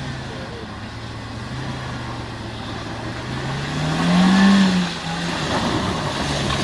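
Off-road 4x4 engine running steadily at low revs, revved up about four seconds in for under a second, then dropping back.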